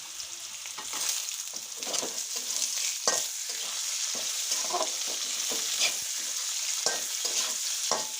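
Chopped carrot sizzling in hot oil in a kadai, stirred with a spatula that scrapes and knocks against the pan every second or so. The sizzle grows a little louder about a second in.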